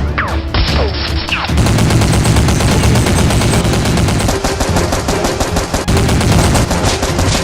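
Rapid automatic gunfire, dubbed-in gun sound effects firing shot after shot in quick succession, with a few falling whistles in the first second or so.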